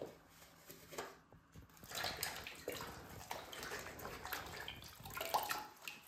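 A couple of light knocks, then water sloshing and splashing in a plastic basin as gloved hands swish and squeeze a sponge in it.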